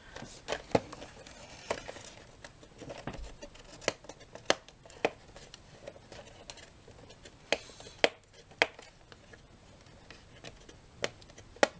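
Cardboard product box being handled and worked open by hand: irregular sharp clicks and taps with faint scraping, a few of the taps much louder than the rest.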